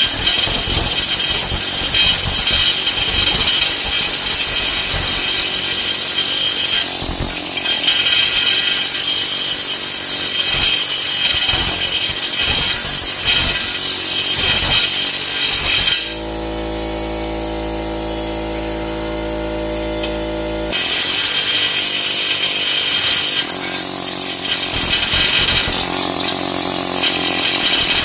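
Pneumatic air chisel (air hammer) hammering continuously on a seized chain adjuster bolt in a motorcycle swing arm, a loud rapid metallic rattle. About two-thirds through it turns quieter and duller for roughly five seconds, then resumes at full force.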